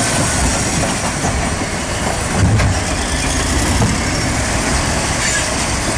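Backhoe loader's diesel engine running loudly and steadily, with rattling and a few metallic knocks as the machine moves.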